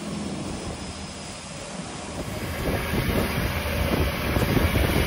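Boat engine running steadily with wind buffeting the microphone, getting louder about two seconds in.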